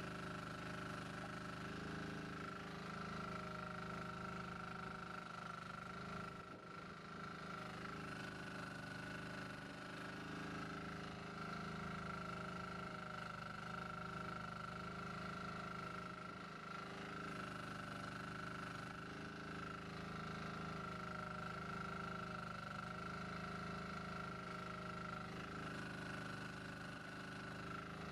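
Jansen MB-2000 mini excavator's engine running steadily while it digs, with a constant high whine over the engine note that dips briefly several times.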